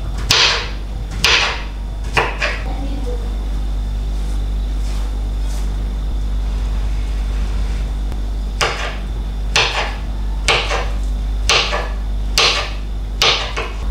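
A kitchen knife cutting through a ripe plantain and knocking on a bamboo cutting board. There are three sharp knocks about a second apart at the start, a pause of several seconds, then six more at about one a second from about nine seconds in.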